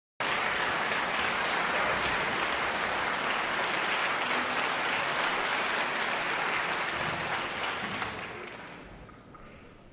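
Concert-hall audience applauding, the applause dying away over the last two seconds.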